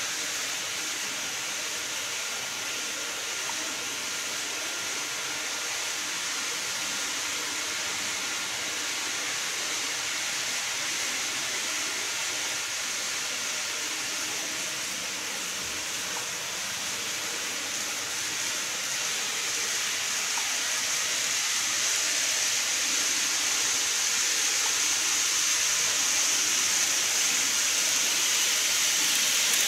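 An N-scale model train (Micro Ace JR Shikoku 8000 series renewal set) running on plastic viaduct track makes a steady hiss. The hiss grows slowly louder and brighter over the second half as the train comes closer.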